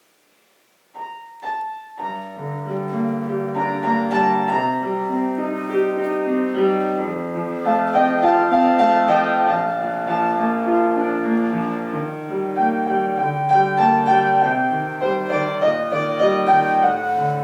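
Piano playing a song's introduction. It enters about a second in with two short notes, then settles into continuous chords under a melody.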